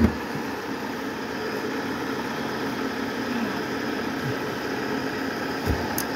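Jeep Cherokee diesel engine idling steadily, with a short low thump right at the start and another near the end.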